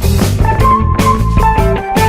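Background music: an instrumental rock track with guitar, bass and a steady drum beat.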